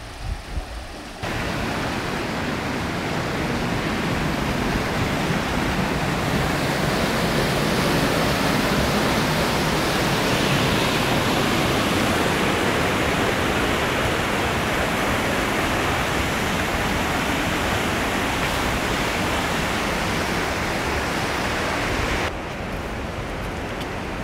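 Mountain creek rushing down a rocky whitewater cascade: a steady, loud rush of water. It starts abruptly about a second in, after a quieter stretch, and drops off sharply near the end.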